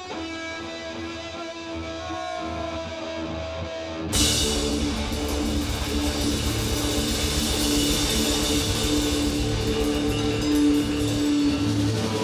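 Live blues-rock band: an electric guitar plays held notes, one bent upward, over a quiet backing. About four seconds in the drums and full band come in suddenly and loudly, with crashing cymbals under a held chord.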